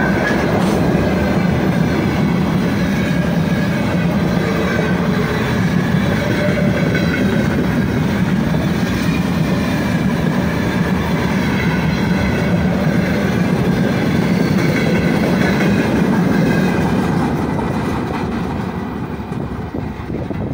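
Open freight wagons of a long freight train rolling past at speed, the wheels on the rails making a steady heavy rumble with a faint wavering metallic ringing above it. The sound fades off near the end as the last wagons go by.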